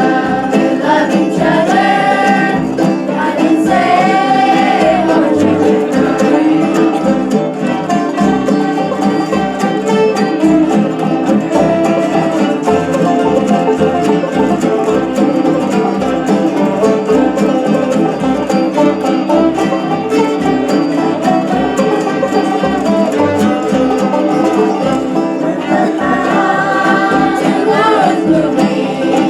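A bluegrass band playing live with singing. The sung lines are clearest near the start and again near the end, with mostly instrumental playing in between.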